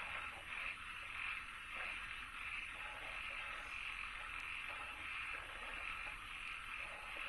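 Frogs calling in a chorus: short, irregular croaks over a steady, high, pulsing trill.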